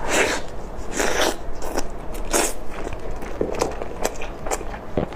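Close-miked eating of braised chicken legs: a run of bites and chewing with wet crackles and clicks, the loudest bites near the start, about a second in, and about two and a half seconds in.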